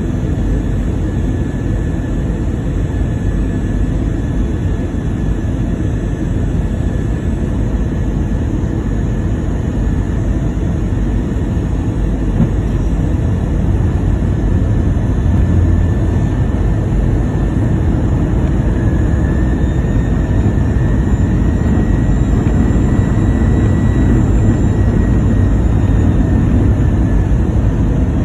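Steady cabin noise inside an Airbus A319 airliner in flight: jet engines running with rushing air, and a faint high whine that rises slightly about two-thirds of the way in.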